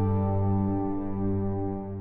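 Ambient background music: a held chord of steady sustained tones, slowly fading toward the end.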